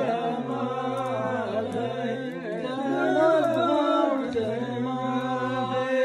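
A man's voice chanting a line of Arabic poetry unaccompanied, drawing the last word out in long, slowly wavering held notes, with a short break about four seconds in.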